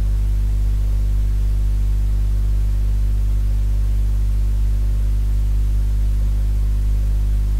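Steady low electrical mains hum with evenly spaced overtones giving it a buzzy edge, over a faint hiss; it holds level and pitch without change.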